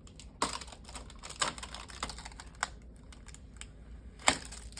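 Irregular light clicks and taps of hands picking at strongly taped plastic packaging, with four sharper snaps, the loudest near the end.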